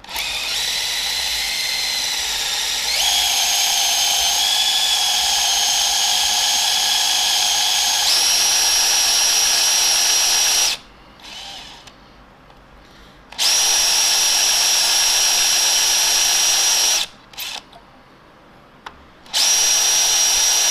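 Cordless DeWalt 20V XR drill boring a 5 mm tap-drill hole into a milling machine's casting. It runs in three long stretches with a few short trigger blips between, and its whine steps up in pitch twice during the first stretch.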